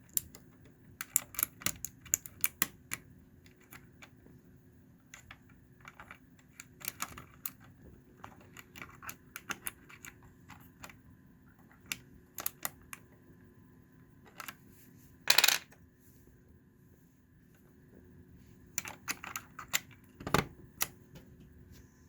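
Computer keyboard keys clicking and tapping in irregular clusters while a keycap that doesn't fit is handled. There is a short, denser clattering burst about fifteen seconds in and a low thump near the end.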